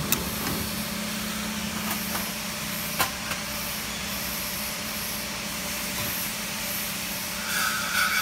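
Ultrasonic label-cutting machine running with a steady hum and hiss, broken by a few sharp clicks; a steady high tone comes in near the end.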